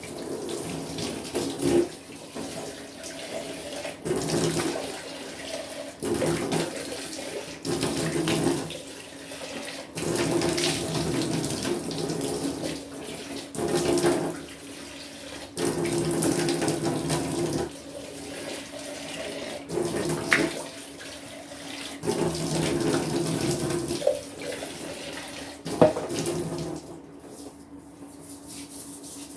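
Water splashing into a kitchen sink in repeated spells of a second or two, stopping and starting, over a steady low hum. A sharp knock comes near the end.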